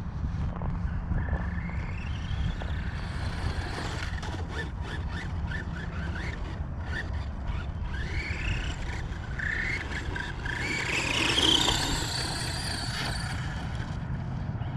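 Electric motor of a Tamiya Blitzer Beetle RC car whining up in pitch as it accelerates several times, loudest near the end, with short scrabbling noises from the tyres spinning on loose ground in between.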